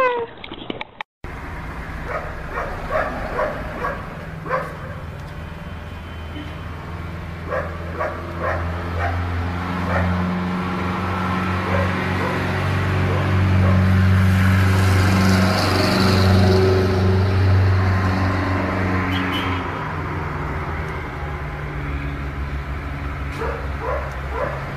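Steady low traffic hum that swells for several seconds about halfway through as a vehicle passes, with a dog giving short barks now and then.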